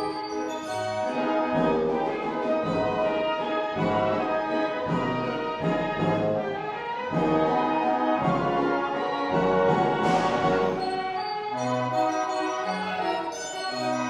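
Mechanical band organ playing a tune with brass-toned trumpet pipes, bass drum beats under the melody, and a cymbal crash about ten seconds in.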